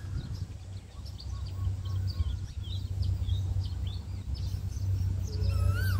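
Steady low hum of an approaching diesel train's engine, growing louder toward the end, under many short bird chirps. A wavering pitched call with overtones sounds just before the end.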